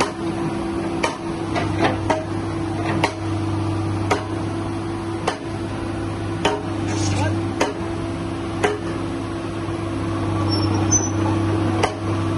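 Tata Hitachi EX200LC crawler excavator's diesel engine running steadily, with sharp metallic knocks about once a second.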